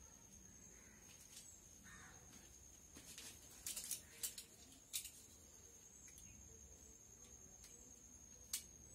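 Mostly quiet, with a few faint clicks and crackles from ball bearings being handled and cut out of their plastic packaging with a utility knife. The clicks come in a cluster a few seconds in and once more near the end.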